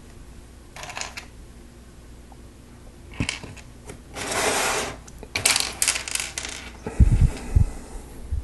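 Plastic Lego Technic pieces clattering and clicking as they are handled and sifted, with a rustling stretch in the middle and a few low thumps near the end.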